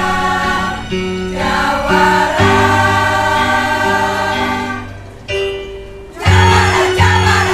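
Women's choir singing with a low instrumental accompaniment. After a brief quieter dip about five seconds in, the bass notes pulse in a regular beat.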